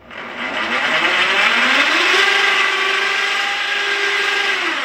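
A 2000 lb winch motor driving a motorised bead roller's rollers through a sprocket, running with a steady mechanical whine. Its pitch rises over the first two seconds as the speed control is turned up, then holds steady, and it stops near the end.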